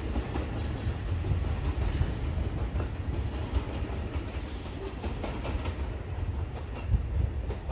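Chuo Rapid Line E233 series electric commuter train running away along the track: a steady rumble with a few wheel clicks, growing fainter as it recedes over the last couple of seconds.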